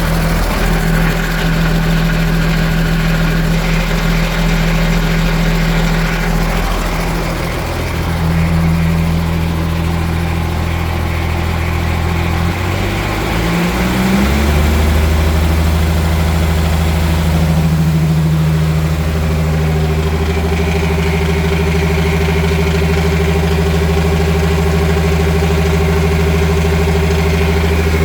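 Boat engine driving a MerCruiser Bravo Two sterndrive, running steadily, with the noise that the rattle complaint is about. About halfway through the engine speeds up with a short rise in pitch, then holds steady at the higher speed.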